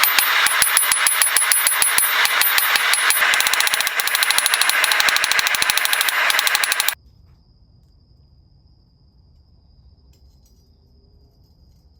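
Rapid, evenly spaced hammer blows on metal, several a second, cutting off abruptly about seven seconds in. After that only a faint steady high-pitched tone and a low hum remain.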